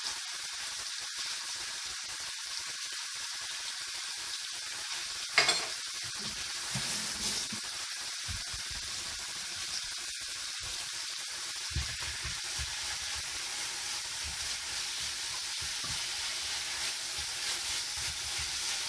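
Minced meat with grated onion and carrot sizzling steadily in oil in a frying pan. A single sharp knock comes about five seconds in, and from about twelve seconds on a wooden spoon stirs and scrapes through the mince.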